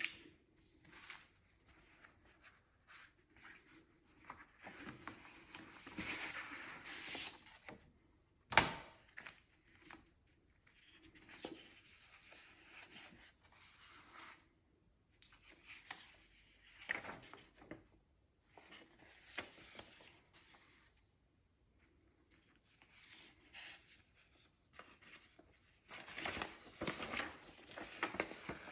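Hands handling and opening packaging: intermittent rustling and rubbing, with one sharp click about eight and a half seconds in.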